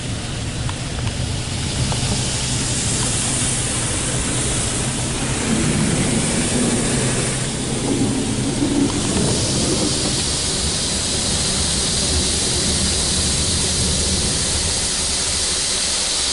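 Belanger Kondor KL2 car wash's spray arm hissing water and foam against the car, heard from inside the cabin, with a steady low hum underneath. The spray grows stronger about two seconds in and changes about nine seconds in, as the pass changes.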